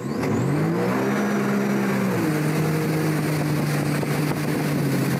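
Tow boat's engine accelerating hard under the load of pulling a rider up out of the water, over a constant rush of wind and water. The pitch climbs for about a second and a half, drops slightly a little after two seconds in, and then holds steady.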